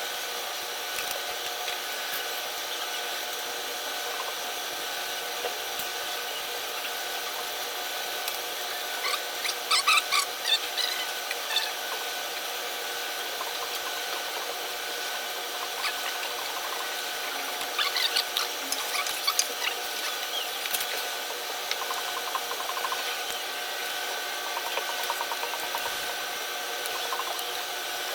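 Close-miked eating sounds: chewing and mouth clicks in two short spells, over a steady background hum.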